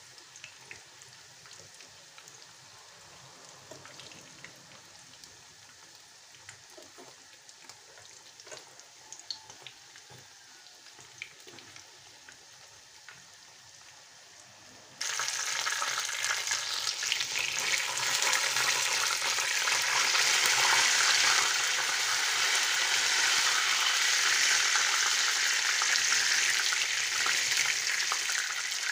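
Pişi (cheese-filled dough pieces) frying in oil in a pan. A quiet sizzle with scattered pops runs through the first half; about halfway through it suddenly becomes much louder and denser.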